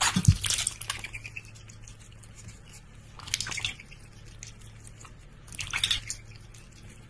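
Water splashing and dripping in a large stainless steel bowl as a duck dabbles its bill in it and lifts it out, in three short bursts: at the start, about three seconds in, and just before six seconds.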